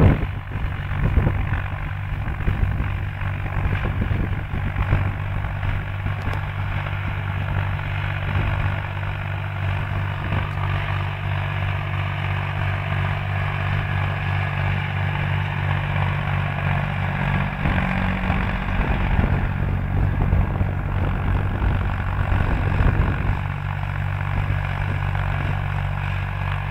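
Ursus C-360 3P tractor's diesel engine running steadily under load while pulling harrows across dry ploughed ground, with a constant low engine note.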